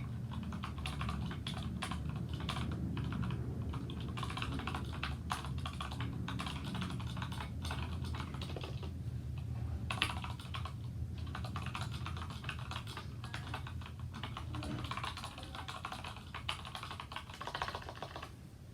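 Continuous typing on a Geek GK61 mechanical keyboard fitted with unlubed Gateron Yellow linear switches: a fast, irregular stream of keystroke clacks, with one sharper keystroke about ten seconds in. The typing grows lighter near the end.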